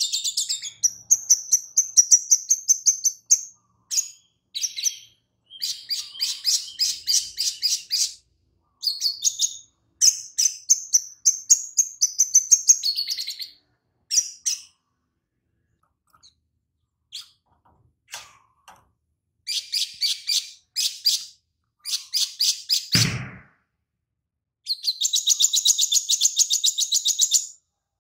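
Olive-backed sunbird (sogon) singing in runs of fast, high chirping trills separated by short pauses, its song filled with phrases learned from lovebirds. A single low thump sounds near the end.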